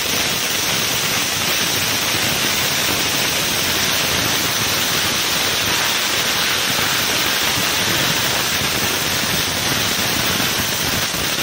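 Ground fountain fireworks (flowerpots) spraying sparks: a loud, steady hiss with no separate bangs.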